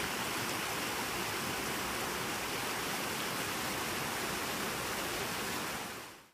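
Creek water rushing and churning steadily past banks of snow and ice, fading out near the end.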